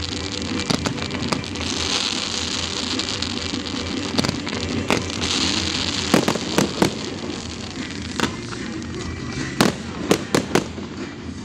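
Fireworks display: a steady hiss of sparks under about a dozen sharp bangs, several close together around six to seven seconds in and again near the end.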